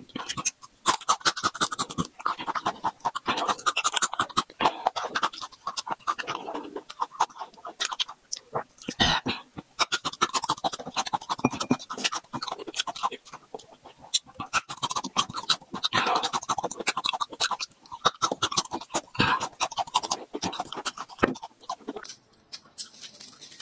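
Close-miked chewing of raw red chili peppers and garlic: a dense run of crunches, wet mouth sounds and heavy breaths.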